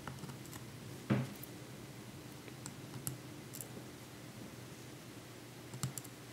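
Faint scattered clicks and light taps from handling small metal parts (a tiny bumper screw, tweezers and hex key) around a metal phone bumper case, with one louder knock about a second in.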